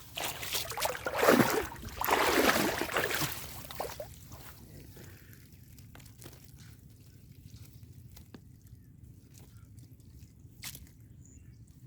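Water sloshing and splashing in several loud bursts over the first four seconds, then quieter, with faint drips and a few small clicks and one sharper click near the end.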